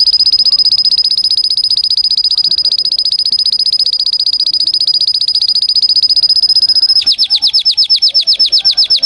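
Domestic canary singing a long, very fast trill on one high steady note, then switching about seven seconds in to a slower roll of falling notes, about a dozen a second.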